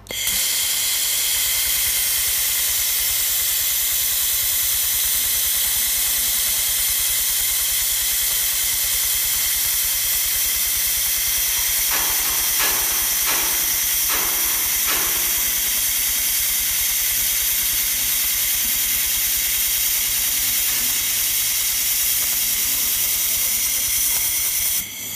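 1500 W handheld fiber laser welder running as it welds a seam between metal plates: a loud, steady hiss with a low hum under it and a few short crackles about halfway through. It cuts off abruptly just before the end.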